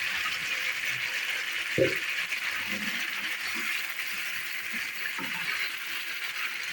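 Mutton and masala sizzling in ghee in a cooking pot, a steady hiss, with a single sharp knock about two seconds in and a few faint knocks after it.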